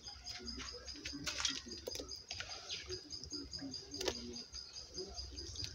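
Scattered light clicks and taps of hands working in a plastic bowl and dropping pieces of dried fish into a pot of soup, over a steady, high, pulsing chirp in the background.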